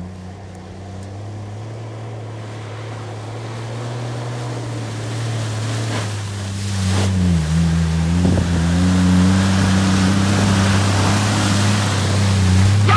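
A 4x4 pickup truck's engine running steadily and growing louder as it approaches, with water splashing as the truck ploughs through a flooded track from about halfway through. The engine note dips briefly and picks up again just after the splashing starts.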